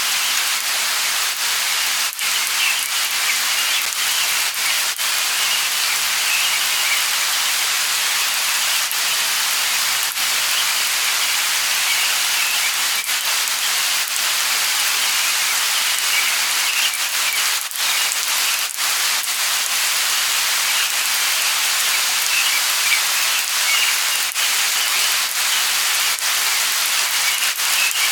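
Light rain falling: a steady, even hiss of raindrops with no pauses.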